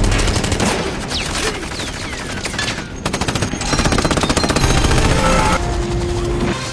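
Sustained automatic gunfire: machine guns and automatic rifles firing rapidly in long bursts, with a short lull about three seconds in.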